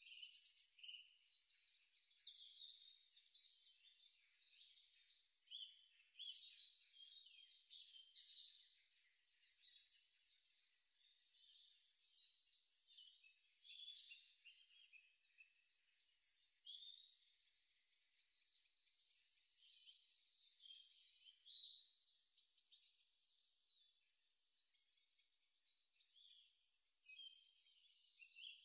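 Faint, continuous high-pitched chirping of birds.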